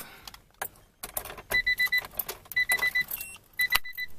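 Car keys rattling and clicking at the ignition of a Honda Prelude, while the car's electronic chime beeps in three quick bursts of about four short beeps each.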